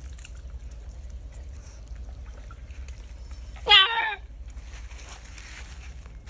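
An otter gives one short, loud whining call about four seconds in, its pitch falling. Beneath it runs a faint steady low hum.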